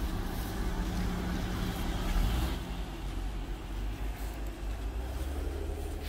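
Steady low rumble and hum of a car engine running at idle.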